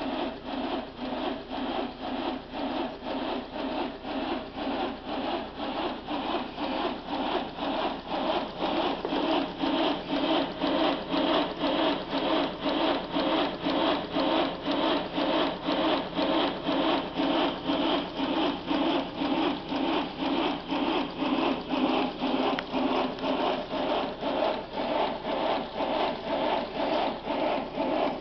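Quarter-scale Hunslet steam locomotive running on a rolling road: a steady, rhythmic rasping and rubbing of the rollers under the turning driving wheels, pulsing with each turn. It grows a little louder about a third of the way in. This rolling-road noise drowns out the engine's exhaust chuffs.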